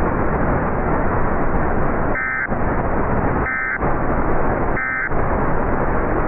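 Steady radio static hiss, broken three times by short two-tone Emergency Alert System data bursts about 1.3 seconds apart: the end-of-message signal that closes an alert broadcast.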